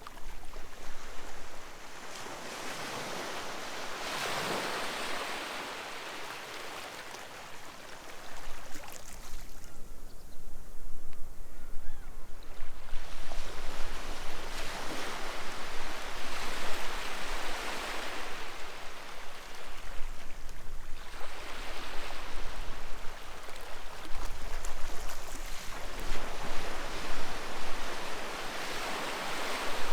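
Sea waves breaking and washing up the beach one after another, about five surges that each swell and fall away over a few seconds.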